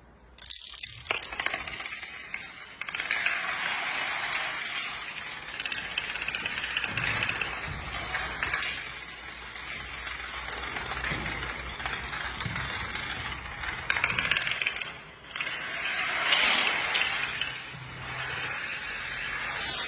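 A long chain of dominoes toppling: a fast, continuous run of small clicking clatters that starts about half a second in and swells and eases in waves, loudest near the end.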